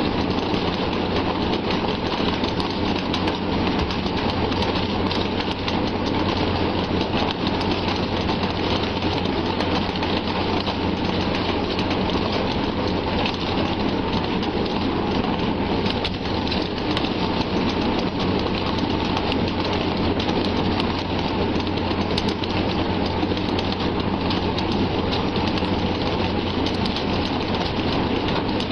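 Dense, steady splashing of a mass of fish thrashing at the surface inside a net, with a boat's outboard engine running underneath as a steady low hum.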